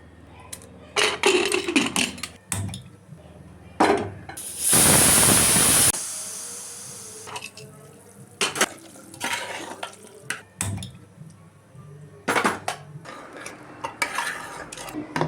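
A metal spoon clinking and scraping against a cooking pot as food is stirred and fried. About five seconds in there is a loud burst of sizzling, as if something has hit hot oil; it lasts a little over a second and then dies down.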